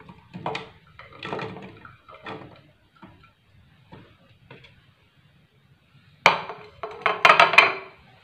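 Chopped spice ingredients dropped from a plate into an empty blender jug, with light knocks and clinks of the plate against the jug, then a louder cluster of clinks and clatters near the end.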